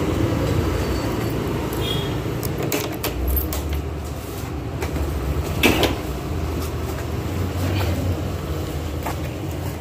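Knocks and rattles of a scooter being handled and pulled back by its grab rail, over a steady low rumble, with one louder knock about six seconds in.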